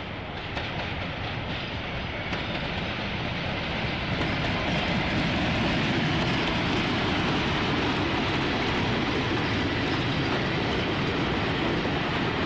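British Rail Class 31 diesel locomotive hauling a train of coaches past at low speed, engine running and wheels rolling on the track. It grows louder over the first few seconds as it comes close, then holds steady.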